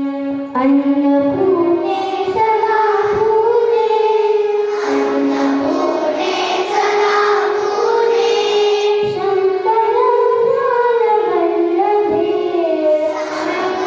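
A group of girls chanting a shloka together into microphones: a slow, melodic sung recitation with long held notes.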